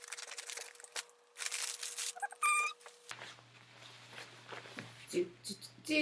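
Plastic mailer bag crinkling and rustling as it is opened and a jacket pulled out of it, busiest in the first three seconds, then softer handling of the fabric. A brief high, steady squeak-like tone sounds about two and a half seconds in.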